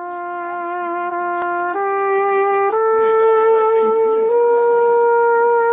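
A solo valved brass horn playing a slow melody of long held notes, each a step higher than the last. The fourth note starts about four seconds in and is held.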